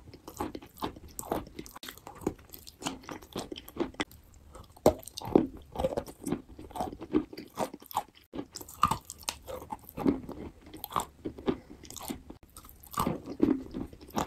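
Close-up chewing and crunching of wet lumps of white chalk, with irregular crisp crunches a few times a second.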